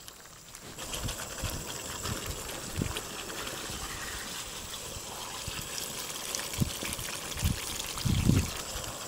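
Chili sambal with quail eggs bubbling and sizzling in a wok over a wood fire: a steady hiss with a patter of small pops that starts about a second in. A few dull low thumps come as a spatula stirs the pan.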